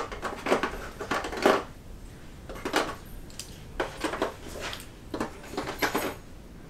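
Plastic board-game miniatures being set down into a plastic box insert tray, clicking and clattering in several short clusters of knocks.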